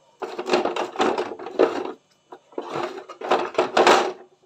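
Clattering and scraping of a Hilti TE2 cordless rotary hammer being handled in its hard plastic carrying case, in two long bouts.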